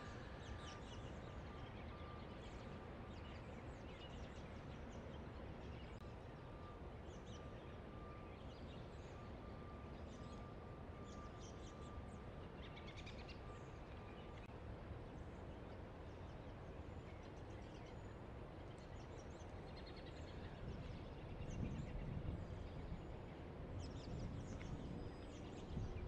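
Outdoor ambient noise: a steady low rumble with small birds chirping now and then. The low rumble grows louder near the end.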